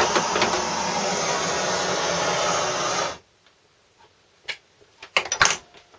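A steady rushing hiss that stops abruptly about three seconds in, followed by a few light clicks and knocks.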